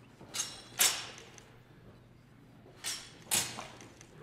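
Steel training longswords clashing in a sparring bout: two sharp, ringing blade strikes half a second apart, then a pause of about two seconds, then two more strikes.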